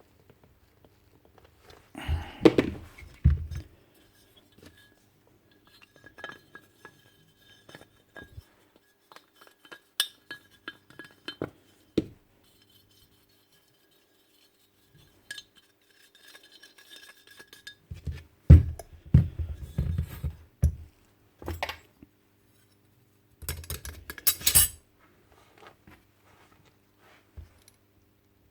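Small metal parts and hand tools clinking and clattering against each other and the bench as a nail gun is reassembled. There are scattered clicks throughout, with louder bursts of clatter about two seconds in, around eighteen to twenty-one seconds and around twenty-four seconds.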